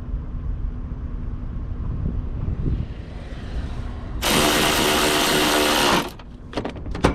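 A power tool runs in one steady burst of just under two seconds, starting and stopping abruptly, followed by a couple of sharp clicks near the end, over a low background rumble.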